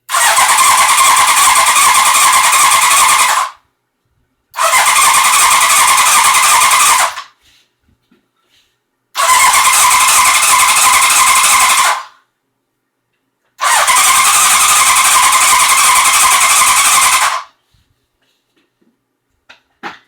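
Electric starter cranking a 1981 Honda CB900 Custom's four-cylinder engine in four tries of about three to four seconds each, with short pauses between; the engine turns over but never catches. With good spark at every plug, the owner suspects a carburettor problem.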